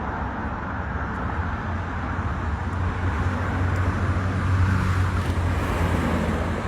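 Steady road-vehicle noise with a low engine hum, swelling a little about halfway through.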